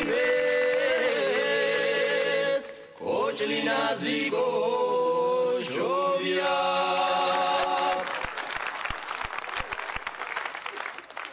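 A man singing a Georgian folk-style song without instruments, in long held notes that waver in pitch. About eight seconds in, the singing stops and clapping follows, fading away near the end.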